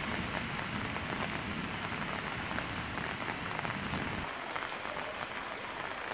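Heavy rain falling on floodwater and pavement, a dense hiss of many small drop ticks. A low rumble underneath drops away about four seconds in.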